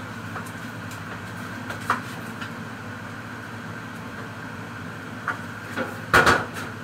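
Cookware being handled on a kitchen counter: a few light knocks, then a louder metal clatter of a pot about six seconds in, over a steady mechanical hum.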